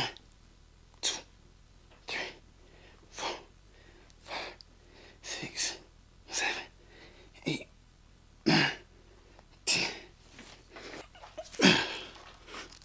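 A man's sharp, forceful exhales, one with each kettlebell row, about one a second, the last near the end the loudest.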